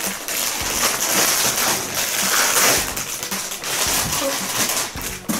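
Plastic toy packaging crinkling and rustling as it is torn open by hand.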